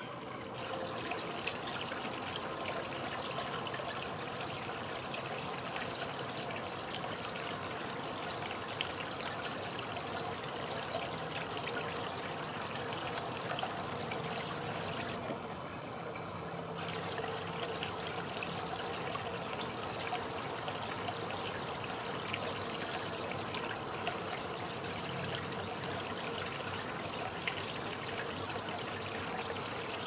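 Steady sound of trickling water.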